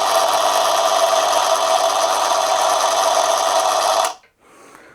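Small Manson lathe running steadily at low speed with its motor and drive humming and whining, taking a very fine cut on a brass bar. The machine stops abruptly about four seconds in.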